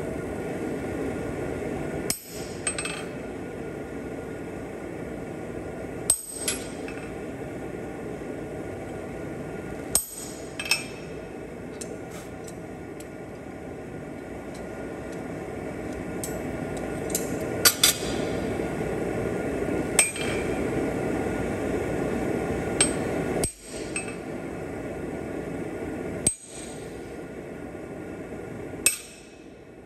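Blacksmith's hammer striking steel on an anvil in scattered single blows, some in quick pairs, with a short metallic ring after each strike. A steady rushing noise runs underneath.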